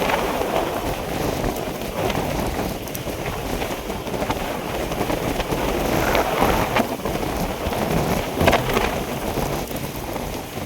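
Storm rain and wind: a steady rushing noise that swells and eases in gusts.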